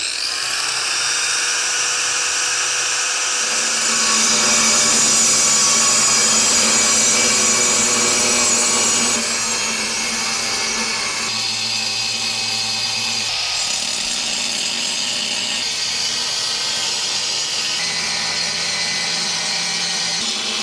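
Angle grinder with a cut-off disc spinning up and cutting 3/16-inch steel plate: a steady high whine that gets louder from about four seconds in for some five seconds, then eases back a little and keeps running.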